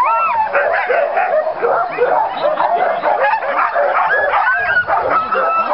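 A team of harnessed sled dogs barking and yipping all at once in a dense, continuous chorus, with a few longer whining calls over it, near the start and again near the end.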